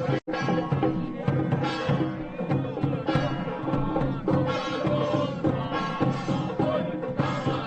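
Traditional temple ceremony music: drums and percussion with a melody over them, cutting out for an instant just after the start.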